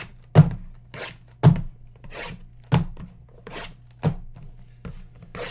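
A run of five sharp knocks on a tabletop, about one a second, with softer scraping between: card boxes and cards being handled and set down on a table.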